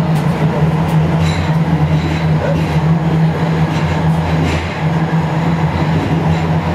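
Sendai Subway Tōzai Line linear-motor train running between stations, heard from inside the passenger car: a steady low hum over a constant rumble of running noise, with a few faint clicks.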